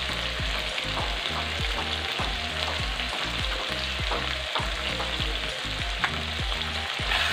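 Onion, garlic and tomato masala with turmeric sizzling in hot oil in an iron kadhai while a metal spatula stirs it, with frequent small clicks and scrapes of the spatula on the pan. This is the masala being fried (bhuna) for a paneer curry.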